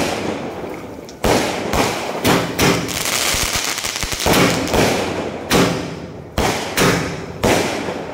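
Aerial fireworks bursting: about ten sharp bangs at uneven intervals of roughly half a second to a second, with crackling between them.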